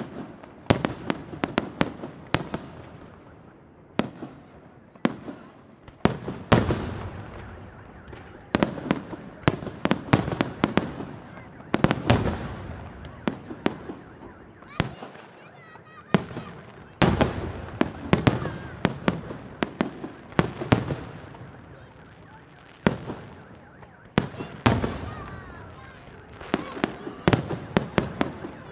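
Fireworks display: aerial shells bursting overhead in rapid, irregular volleys of sharp bangs, each followed by a smear of echo. There is a short lull about halfway through before the bangs pick up again.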